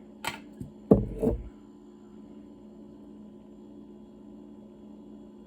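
A few short knocks and clicks in the first second and a half, the loudest about a second in, from a small pocket knife being handled; after that only a steady low hum.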